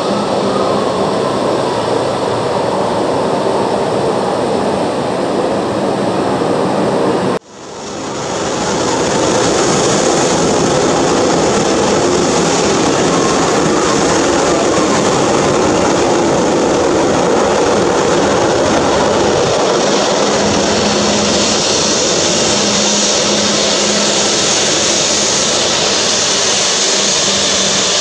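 Turbofan engines of an Embraer 190 jet running as it rolls out and taxis: a steady, even jet noise with a faint low hum. About seven seconds in the sound cuts off abruptly and rises back within a second or two.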